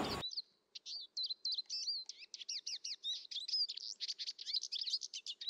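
Small birds chirping: a dense run of short, quick high calls, with a faint steady hum beneath.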